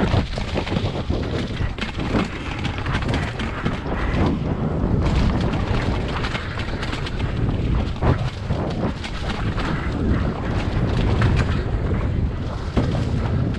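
Mountain bike ridden fast down a dirt trail covered in wet leaves, heard from a camera mounted on the bike or rider. Steady wind rush and low rumble, with frequent knocks and rattles as the bike goes over bumps and roots.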